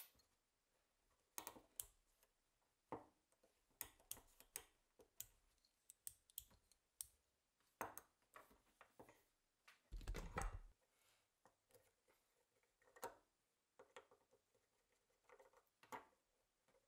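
Steel parts of a Colt Lightning action clicking and tapping against each other and the wooden bench as they are handled and separated during disassembly. There are scattered single clicks throughout, and a longer, heavier knock and rub about ten seconds in.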